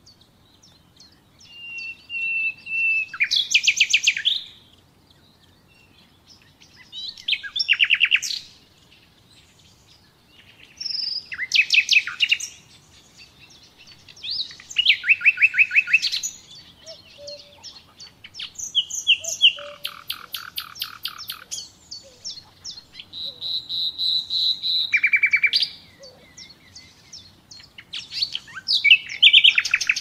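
Common nightingale singing in separate phrases of one to three seconds. Most phrases are fast runs of repeated notes, some open with a long steady whistled note, and pauses of a second or more lie between them.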